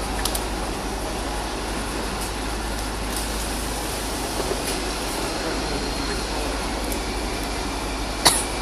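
Steady hum and hiss of workshop machinery running, with a few faint ticks, a faint high tone for a couple of seconds midway, and one sharp click near the end.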